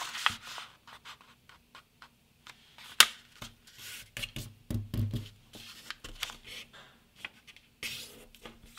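A sheet of printer paper being handled and folded: irregular short rustles and scrapes as it is creased, with one sharp click about three seconds in.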